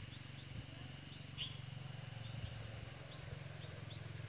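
Outdoor ambience of short, repeated bird chirps and a high insect buzz that comes and goes, over a steady low hum.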